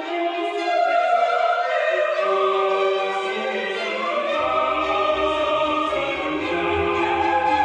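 Orchestral music with a choir singing long, held notes. Low bass notes come in a little past halfway.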